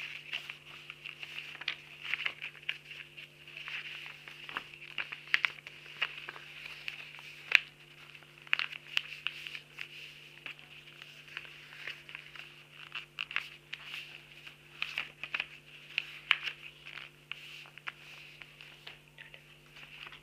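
Sheet of paper rustling and crinkling as it is folded and creased by hand into a paper airplane, in irregular crackles and taps, over a faint steady hum.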